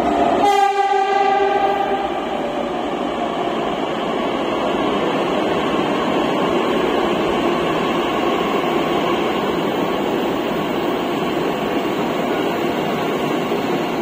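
Pune Metro train running, a steady rushing noise. A held pitched tone sounds over it for the first couple of seconds, then stops.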